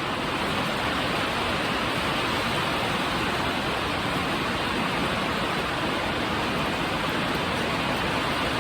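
Steady rain coming down, a constant even rushing hiss with no breaks.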